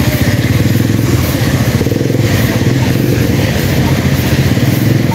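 Loud, steady low rumble of vehicles on a rain-soaked city street, with a hiss above it.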